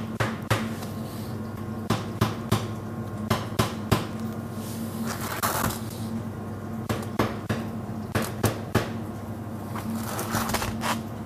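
Knuckles tapping a freshly baked loaf of bread, a series of irregular knocks in small clusters. This is the test for hollowness that shows the bread is fully baked. There is a brief rustle of handling about halfway through.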